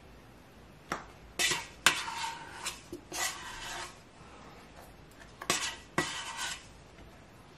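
Plastic dough scraper scraping around the inside of a stainless-steel mixing bowl, loosening soft bread dough, with a few sharp knocks against the metal. The scraping comes in two bouts, several strokes in the first few seconds and more about two-thirds of the way through.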